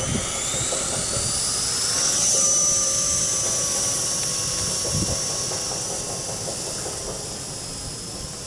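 Blade 130X micro RC helicopter's electric motor and gear drive with its 10-tooth pinion, whining as the rotor spools up: the pitch rises over the first two seconds or so, then holds as a steady high whine that sags slightly.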